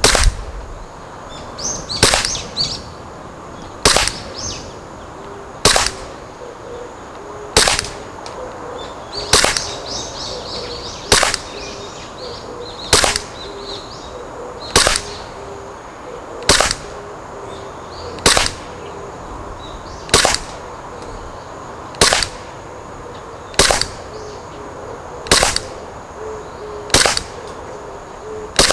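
Tokyo Marui Glock 17 Gen4 gas blowback airsoft pistol firing single aimed shots at a slow, even pace, about one every two seconds: some sixteen sharp cracks of the shot and slide cycling. Birds chirp faintly between shots.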